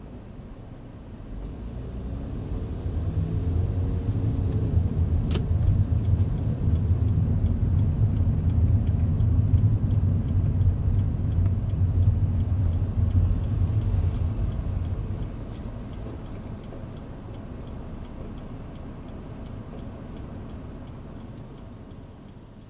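Car engine and tyre noise heard from inside the cabin: a low rumble that swells about two seconds in as the car pulls away, with a rising engine note as it accelerates, then dies down after about fifteen seconds as the car slows in traffic.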